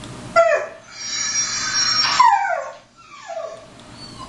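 Dog yelp and whine sound effect played through computer speakers: a sharp yelp falling in pitch, a longer high-pitched cry, then two more falling yelps.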